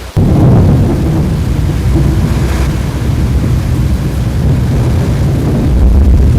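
Severe thunderstorm: heavy rain with a loud, steady low rumble, starting abruptly.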